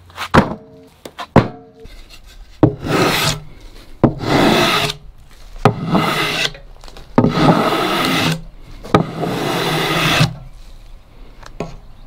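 A thin wooden slat scraped along the freshly sawn face of a black walnut log, sweeping off sawdust in five strokes of about a second each. Two sharp knocks come in the first second and a half.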